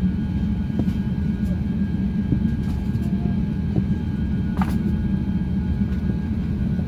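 Steady low rumble inside the cabin of an Airbus A350-900 taxiing, with faint steady whine tones above it. A few light clicks and a brief squeak about four and a half seconds in.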